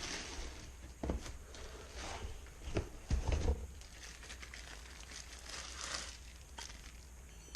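Plastic wrapping crinkling while hand-blender attachments are handled, with a few light knocks and clicks of plastic parts, the loudest about a second in and around three seconds in.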